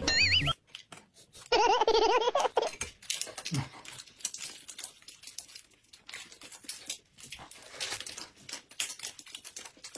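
Plastic snack packets rustling and crackling as small wrapped eggs are torn open and peeled. A short warbling, wavering tone sounds right at the start, and a louder one, the loudest thing here, lasts about a second from one and a half seconds in.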